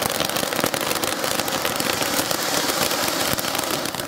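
'Spiderman' ground-fountain firecracker burning, spraying sparks with a steady hiss and a dense, rapid crackling.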